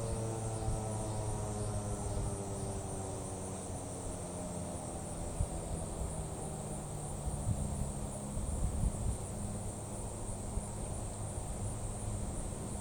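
Federal Signal 2001-SRN electromechanical warning siren winding down, its tone falling in pitch and fading away over the first few seconds. A steady high insect buzz, typical of crickets, runs underneath.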